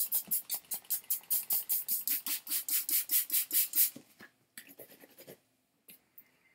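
Trigger spray bottle pumped rapidly, about five hissing squirts a second, misting cleaning solution onto carpet; the spraying stops about four seconds in, followed by a few light knocks.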